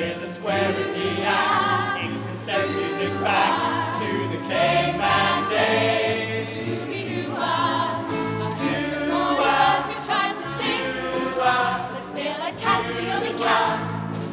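Mixed choir of women's and men's voices singing together.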